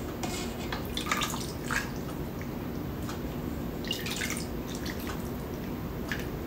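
Soup broth spooned from a stainless steel pot into a ceramic bowl: several short splashes and drips as each spoonful pours in, with a faint steady background between them.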